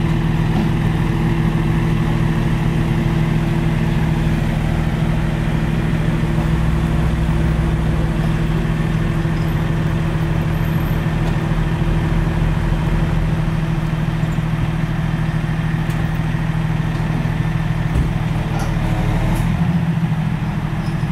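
Heavy diesel engine idling steadily, a constant low hum that shifts slightly near the end.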